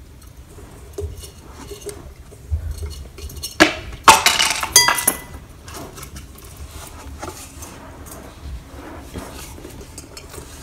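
Objects being handled: scattered light knocks, then a cluster of sharp clinks with brief ringing from about three and a half to five seconds in, the loudest part.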